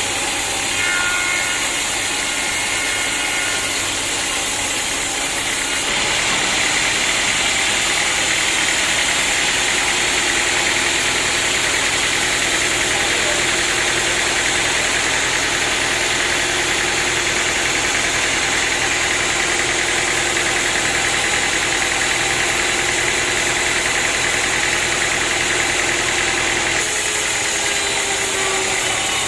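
Sawmill running, with the saw cutting through an acacia log from about six seconds in until near the end, when the cut stops and the machine runs on.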